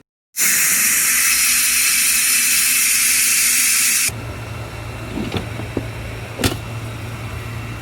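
Electric pressure cooker's valve venting steam in a loud, steady hiss for about four seconds: the pressure being let out at the end of cooking. It stops suddenly and is followed by a quieter steady low hum with a few light clicks and one sharp knock.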